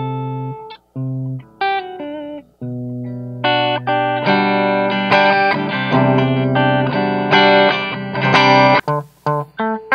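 Les Paul electric guitar on its humbucker pickups played clean through an Audio Baron TG-30 30-watt amplifier: a few ringing chords, then a busier strummed passage that cuts off sharply about nine seconds in, followed by short choppy chords.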